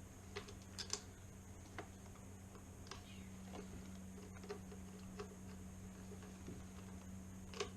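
Scattered light clicks and taps of small metal lock parts being handled and fitted on a door, over a steady low hum.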